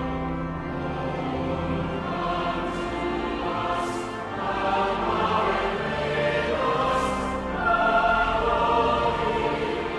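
A choir singing with held, sustained notes.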